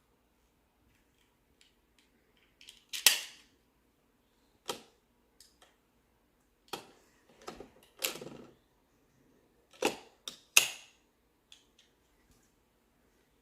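Plastic magnetic building tiles clacking and snapping together as they are handled, a string of sharp, irregular clacks. The loudest come about three seconds in and again about ten and a half seconds in, with a quick run of smaller clicks around eight seconds.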